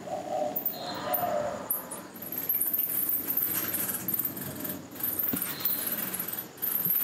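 Bats roosting in the cell, chittering in rapid, very high-pitched squeaks that come in irregular bursts, with a brief lower tone in the first second or so.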